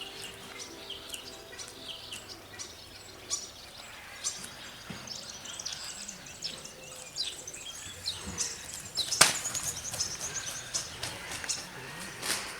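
Birds calling: many short, high chirps and calls in quick succession, with a loud sharp call or crack about nine seconds in and another near the end.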